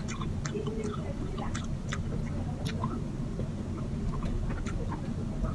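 Close-up chewing and lip-smacking while eating tocino and rice by hand: irregular sharp wet clicks several times a second over a steady low hum.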